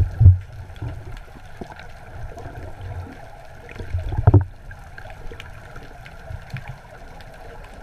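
Muffled water sloshing and gurgling around an underwater camera, with two heavy low thumps of moving water, one just after the start and one about four seconds in, and scattered faint crackles.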